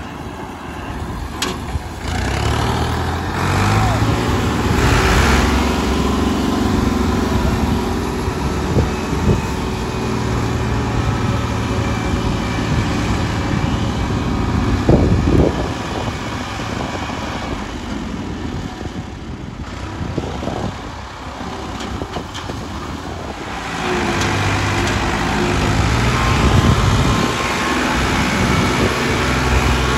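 Ford 3610 tractor's three-cylinder diesel engine running under load as it pulls a loaded sugarcane trolley, its note rising and falling. It drops back for a few seconds past the middle, then comes up strongly again near the end.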